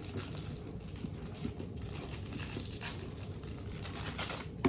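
Crinkling and rustling from things being handled close to the microphone, with a sharp knock near the end.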